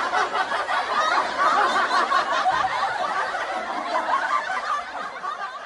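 Laughter sound effect: a crowd of people laughing together, fading out near the end.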